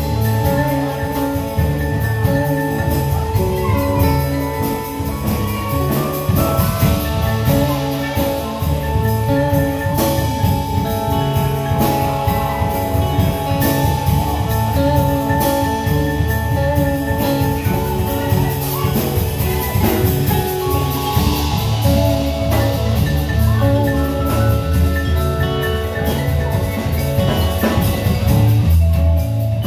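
Live band playing an instrumental passage: vibraphone melody over electric bass, electric guitar and drum kit.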